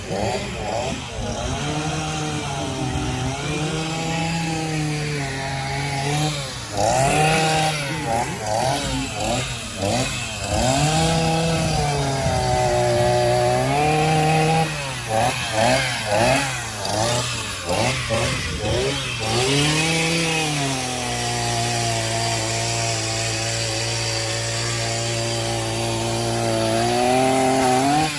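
Two-stroke chainsaw carving into a red elm log, its engine revving up and down again and again as the throttle is worked. About two-thirds through it holds a steadier, lower note for several seconds, then revs up again near the end.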